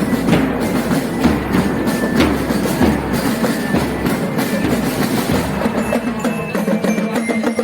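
School marching drum band playing: drums beating a rhythm of sharp strokes, with pitched instruments holding notes over them.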